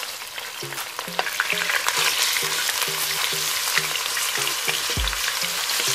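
Raw chicken cubes frying in hot oil in a wok, a dense crackling sizzle that grows louder about two seconds in, with metal tongs turning the pieces. A short low thump about five seconds in.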